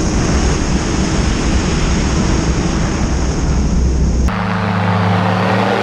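Ultralight trike's engine and pusher propeller running at flight power, with heavy wind rush on the wing-mounted microphone. About four seconds in, the wind rush drops away and the engine's steady, pitched drone comes through clearly.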